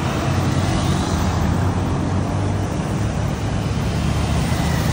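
Road traffic driving past close by: a van, cars and a motorcycle, a steady mix of engine hum and tyre noise.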